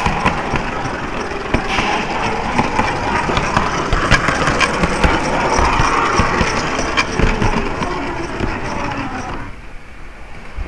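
A model tram running along its track close by, a steady rolling and motor noise with frequent clicks, which stops abruptly about nine and a half seconds in.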